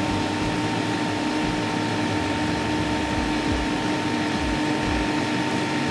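NAVAC refrigerant recovery machine running steadily in recovery mode, pulling R-134a out of a reach-in cooler's system. It makes an even hum with a constant mid-pitched tone.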